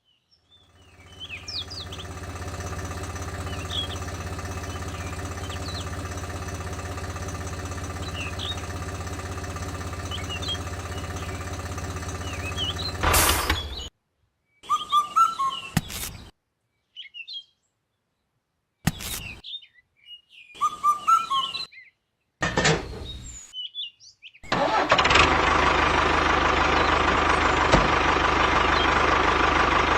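Small engine of a homemade mini tractor running steadily, with birds chirping over it. About halfway through, the sound breaks into short pieces with dead silences between. Near the end the engine comes back louder.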